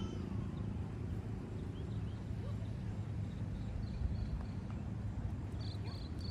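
Steady low rumble of outdoor background noise, with a few short, high chirps: a pair about four seconds in and three more near the end.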